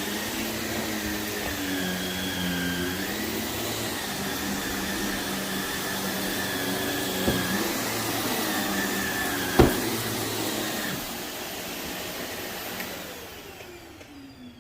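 Vacuum cleaner running on carpet, its motor pitch dipping briefly near the start, with two sharp clicks in the middle, the second louder. It is then switched off and winds down with a falling whine near the end.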